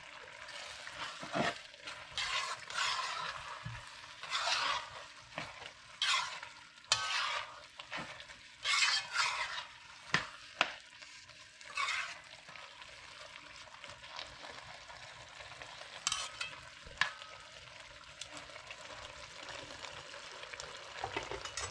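Metal spoon stirring and scraping thick cook-up rice (rice, kidney beans and black-eyed peas) around a large metal pot, in a series of scrapes with a few sharp clicks against the pot over the first twelve seconds or so. A soft, steady simmer runs underneath as the pot dries down near the end of cooking.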